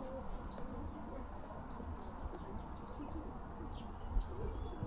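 Small songbirds chirping in the trees, with a quick run of high repeated notes in the second half, over a steady low rumble.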